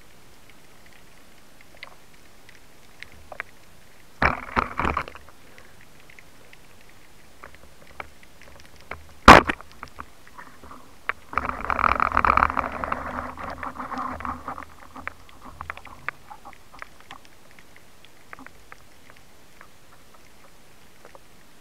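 Band-powered speargun fired underwater: one sharp crack about nine seconds in, the loudest sound. About two seconds later comes roughly three seconds of dense rattling, bubbly noise, and a shorter cluster of clicks comes about four seconds in.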